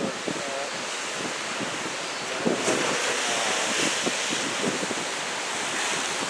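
Ocean surf from a typhoon swell breaking and washing ashore, a steady rush of noise, with wind buffeting the microphone.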